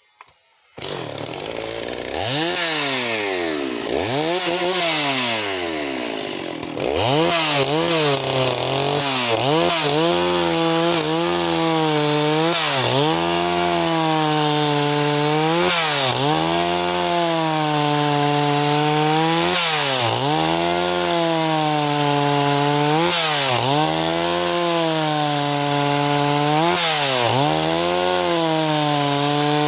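Stihl 038 two-stroke chainsaw running at high revs, its pitch dipping and recovering every second or two. It comes in suddenly about a second in and gets louder from about seven seconds in.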